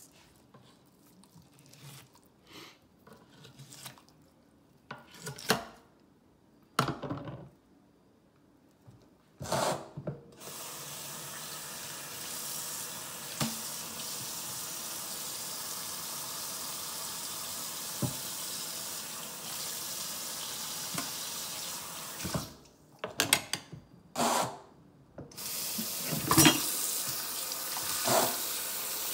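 Scattered knocks and scrapes of a knife working a fish on a plastic cutting board. About a third of the way in, the kitchen faucet starts running into a stainless steel sink. It stops briefly with a few more knocks, then runs again louder near the end, rinsing the fish.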